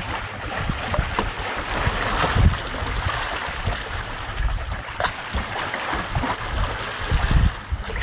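Shallow stream running and rippling over stones, with gusts of wind rumbling on the microphone.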